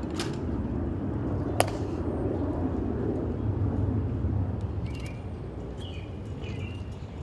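Steady low outdoor rumble with two sharp clicks in the first two seconds, the sentinels' hands striking their rifles as they present arms. A few faint bird chirps near the end.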